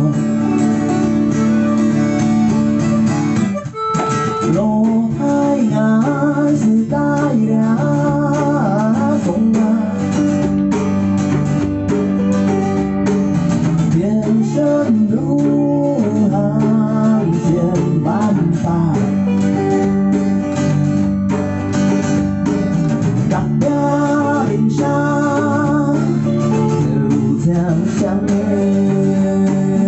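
Small band playing live: a strummed acoustic guitar with bass and electric guitar, and a wavering melody line over the chords. The music drops out briefly about four seconds in, then carries on.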